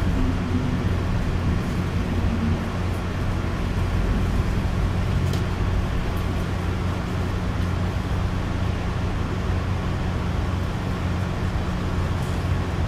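Passenger train running steadily, heard from inside the coach: a continuous rolling rumble with a low, even hum and an occasional faint click.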